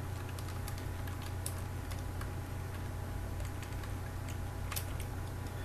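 Scattered clicks of computer keyboard keys being pressed while code is edited, over a steady low hum.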